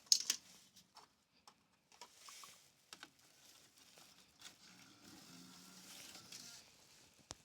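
Faint clicks and small handling noises in a quiet room, with a few sharper clicks near the start.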